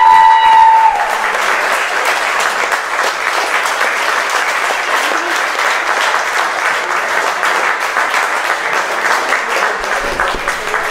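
Audience applauding steadily, a dense patter of many hands. Over the first second a long high-pitched cheer is held and then breaks off.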